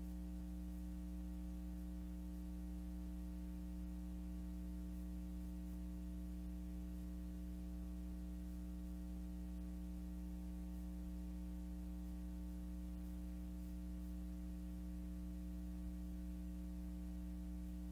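Steady electrical hum with a stack of overtones over faint hiss, with no other sound.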